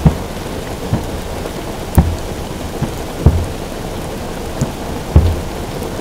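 Rain drumming steadily on a car roof, with distant aerial firework shells bursting in a string of dull, low booms about one a second, some louder than others.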